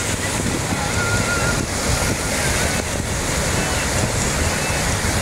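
Small waves breaking in the shallows and washing up the beach: a steady rush of surf.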